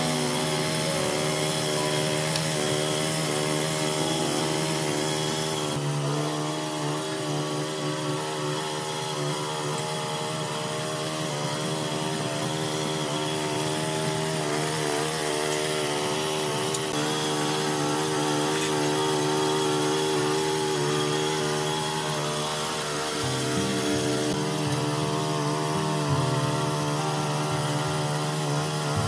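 Small petrol engine of a mini tiller (rotary cultivator) running under load, its pitch wavering as the tines churn through wet sand-and-cement mix.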